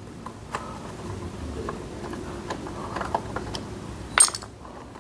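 A screwdriver backing out small screws from a motorcycle's plastic radiator cover: faint scraping and light ticking clicks, with one sharp click about four seconds in.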